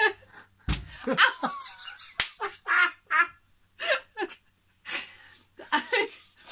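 A woman laughing in short bursts, with a dull thump about a second in and a sharp click about two seconds in.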